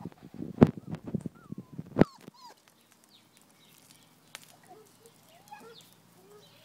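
Magyar Vizsla puppy whimpering in short, high, gliding whines, over close rustling and thumps that stop about two seconds in; fainter whines follow.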